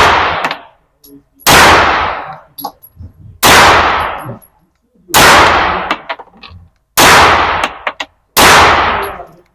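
KRISS Vector submachine gun fired single shot after single shot: five loud shots about two seconds apart, each with a long echoing decay, with small clinks between them.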